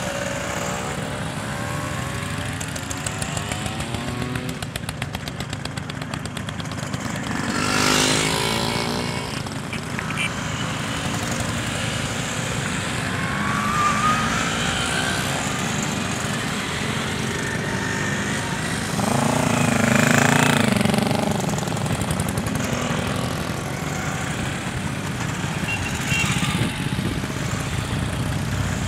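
A stream of vintage two-stroke Vespa and Lambretta scooters passing one after another, their small engines buzzing and revving as they ride by, with louder passes about eight and twenty seconds in. Near the end, vintage Fiat 500 cars begin to pass.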